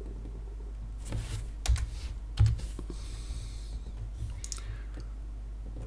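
Scattered clicks and key taps on a computer keyboard and mouse, the loudest about two and a half seconds in, over a steady low hum.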